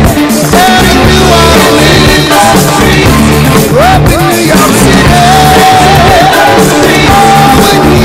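Loud music with a singing voice over a steady bass line.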